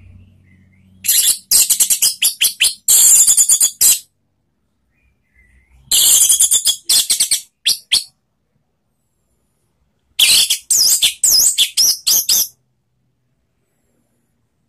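Orange-headed thrush (anis merah) singing its full, open song in three loud bursts of rapid, high-pitched warbles and trills, each two to three seconds long, with pauses between.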